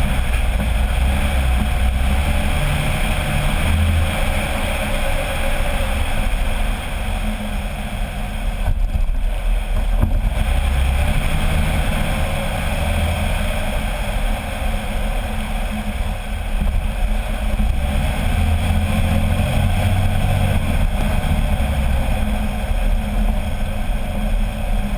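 Road noise from beneath a Jeep Wrangler LJ Rubicon on the move: a steady rumble of tyres and running gear, with wind buffeting the microphone.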